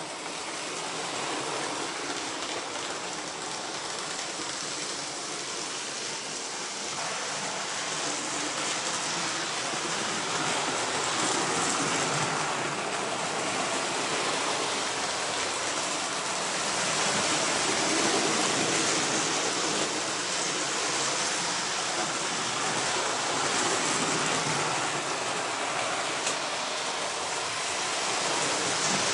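Hornby model trains running round the layout, their small electric motors whirring and wheels rumbling on the track. The sound is steady and grows louder over the first ten seconds or so.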